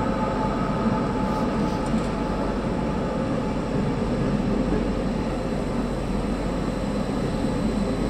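Underground metro train running through a station, a steady rumble with a faint whine that fades during the first second.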